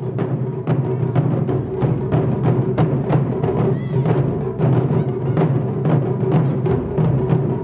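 Background music with a steady drum beat, about three hits a second.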